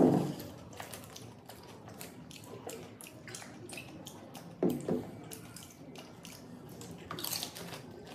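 Close-miked eating: a steady run of crunching, chewing and mouth clicks as pani puri shells and chicken lollipops are eaten, with a louder burst at the start and two more about five seconds in.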